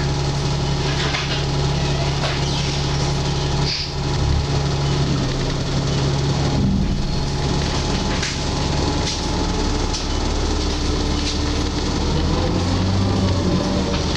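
Alexander Dennis Enviro 300 bus heard from inside the saloon while driving: a steady engine and road noise with scattered rattles and a brief high squeak about four seconds in. The engine note shifts near the end.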